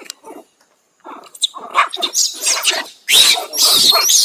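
Macaque monkeys calling: short grunting calls at first, then from about three seconds in loud, shrill screams with a rising pitch.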